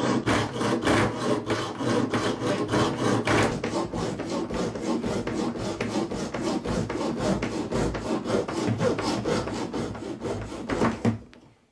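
Rhythmic rasping scrape, about three to four strokes a second, that stops near the end.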